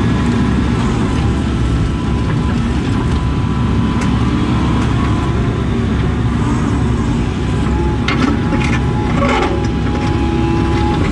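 Case CX80 excavator's diesel engine and hydraulics running steadily, heard from inside the cab. About eight seconds in, a short run of scrapes and knocks as the bucket digs into buried concrete block.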